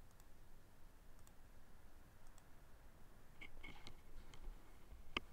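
Faint computer mouse clicks over a low hiss, a few scattered single clicks, a short cluster of them about three and a half seconds in, and a sharper click near the end.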